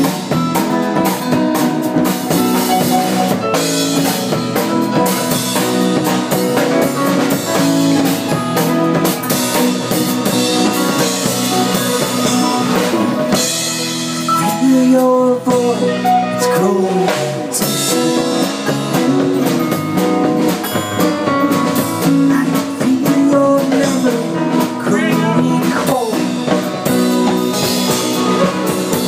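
Live band playing an instrumental passage with electric guitar, acoustic guitar, keyboards and drums, with a lead line of bending notes around the middle.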